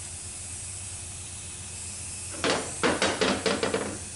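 Steady background hiss, then about a second and a half of clattering metal knocks and clinks as transmission valve body sections are picked up and set down on the bench.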